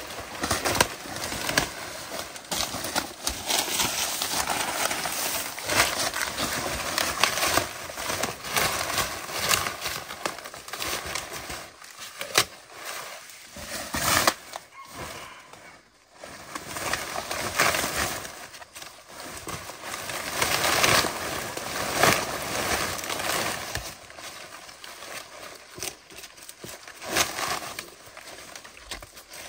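Large leaves and leafy stems rustling and crackling as they are handled, gathered and stacked into a bundle. The sound is irregular, with repeated sharp crackles and a brief lull about halfway through.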